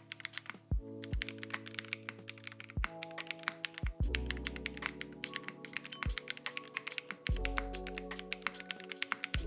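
Fast typing on a Zoom75 mechanical keyboard with Akko Botany linear switches and GMK keycaps: quick runs of key clacks as the keys bottom out. Background music with sustained chords plays underneath.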